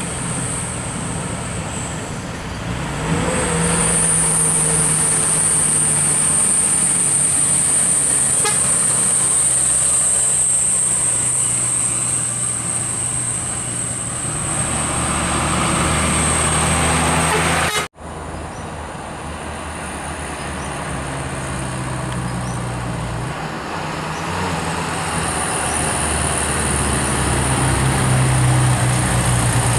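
Road traffic on a steep uphill road: heavy diesel truck engines running under load, with horn toots. The sound cuts out abruptly for an instant a little past halfway.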